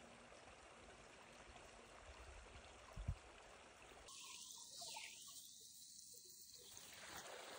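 Near silence: a faint steady hiss, with one soft low thump about three seconds in.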